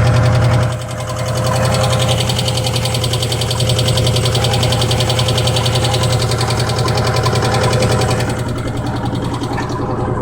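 Subaru EJ20E flat-four engine running with a rapid, even knock in time with the engine, suspected to be piston knock. The knock fades away near the end.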